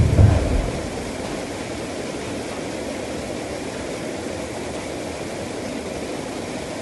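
Explosive charge going off under river ice: one sudden, deep boom at the very start, dying away within about half a second. A steady rushing noise follows and runs on after it.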